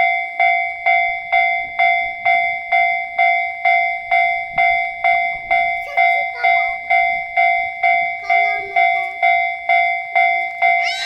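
Japanese railway level-crossing warning alarm ringing its "kan-kan" at a steady pace of about two strikes a second, each strike a clear two-tone ring that fades before the next.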